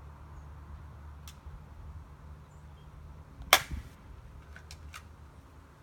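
BB pistol shot: one sharp snap about three and a half seconds in, followed by a couple of faint clicks.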